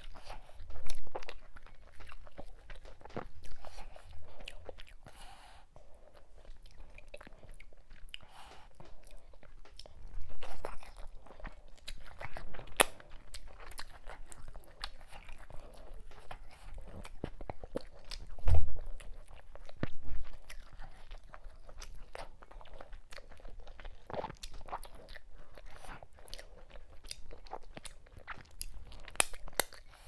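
Close-miked eating by hand: wet chewing and mouth clicks of fufu with ogbono soup, with sticky squishes as fingers work the soup. A few low thumps stand out, the loudest about eighteen seconds in.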